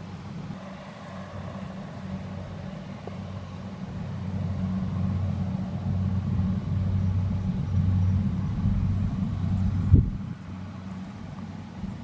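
Kubota DC-70 combine harvester's diesel engine running steadily with a low hum as it cuts rice, louder from about four seconds in. A single sharp knock comes near the end, after which it is quieter.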